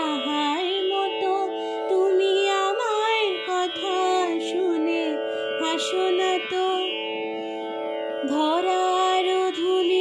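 Background music in an Indian classical style: a melody with sliding, bending ornaments played over a steady sustained drone.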